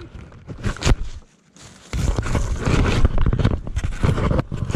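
Close handling noise on the camera's own microphone while a dog carries the camera in its mouth: knocks and scraping at first, then about two seconds in a dense, rough rustling and buffeting.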